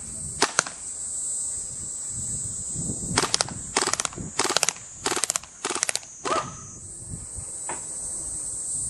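Maruzen Ingram M11 gas-blowback airsoft submachine gun firing: two single sharp cracks near the start, then about six short rapid bursts in quick succession from about three seconds in, each burst a fast rattle of the blowback bolt cycling. A steady high-pitched insect chirring runs behind.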